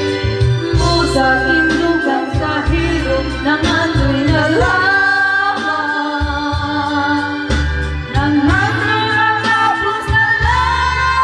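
A woman singing into a handheld microphone over a recorded backing track with a steady bass beat, holding some notes long.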